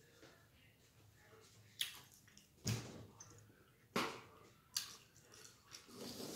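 Close-up wet mouth sounds of someone chewing a mouthful of sandwich, with four short sharp smacks about a second apart.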